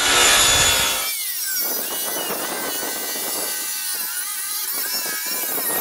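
Electric power saw cutting a plywood sheet: a high motor whine in the first second, then a steady cutting sound whose pitch wavers as the blade works through the wood.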